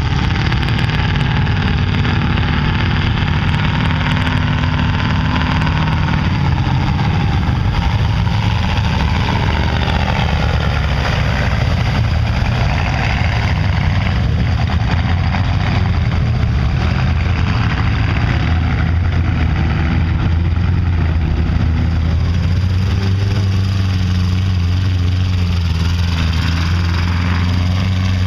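Engines of lifted 4x4 pickup trucks running hard as they drive through a mud pit, the engine pitch rising and falling several times.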